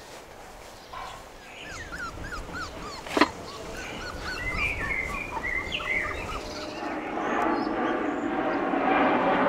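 A dog whining and whimpering in a run of short, pitched calls, with a single sharp clank about three seconds in.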